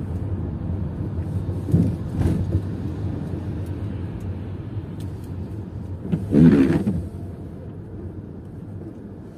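Steady low rumble of a car's engine and tyres heard from inside the cabin, crawling in slow stop-and-go traffic. A short louder sound with a wavering pitch stands out about six and a half seconds in, and the rumble drops somewhat after it.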